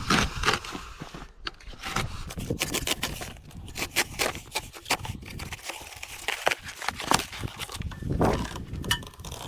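A dull knife cutting and scraping at cardboard packaging, with irregular crackles, scrapes and tearing as the box is worked open.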